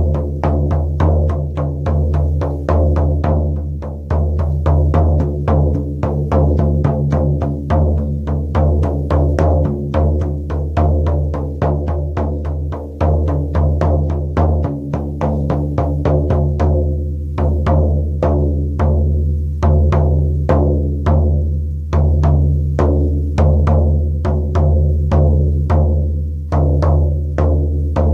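Shaman's frame drum beaten in a steady, even pulse of about two to three strokes a second, each stroke leaving a low ringing that carries on under the next.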